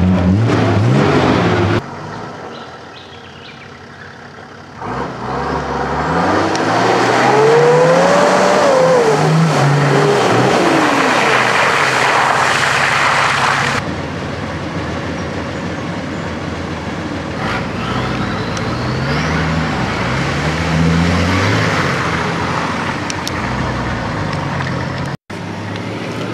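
Four-wheel-drive engines revving up and down again and again while driving through mud and water, with a rush of splashing mud and tyre noise in the middle stretch. The sound jumps suddenly several times as one vehicle's run gives way to the next.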